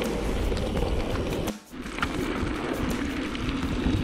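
Wind buffeting a handlebar-mounted action camera, with the rattle and clatter of a bicycle rolling over a rough, rutted dirt track. The sound drops out briefly about a second and a half in, then carries on much the same.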